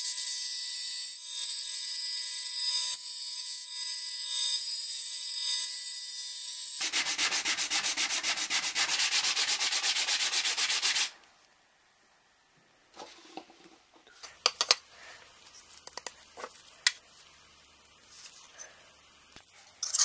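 A small bandsaw runs and cuts through a knife handle scale. About 7 s in, a powered sander takes over, grinding a handheld piece with a fast, pulsing rasp. It stops abruptly about 11 s in, and light clicks and taps of parts being handled follow.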